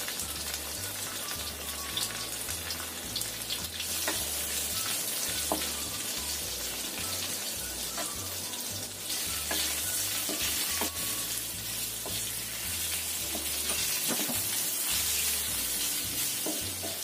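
Cornstarch-coated chicken pieces sizzling as they shallow-fry in a little oil in a wok over low heat, the sizzle growing louder about halfway through. A wooden spatula scrapes and taps against the wok every second or two as the pieces are turned.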